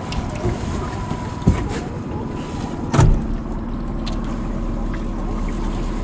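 Aluminium fishing boat at rest on the water, with steady background noise and a couple of sharp knocks on the hull. The loudest knock comes about halfway through, and after it a low steady hum sets in.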